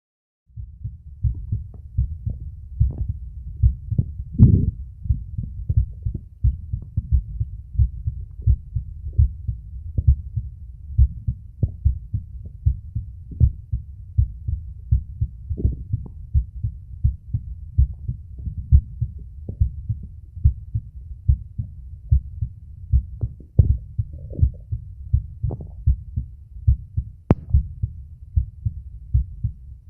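A man's heartbeat recorded through a phone microphone pressed to the chest: a steady rhythm of low paired thumps, a little over one beat a second, starting about half a second in. Near the end there is a single sharp click, typical of the phone rubbing or knocking against the skin.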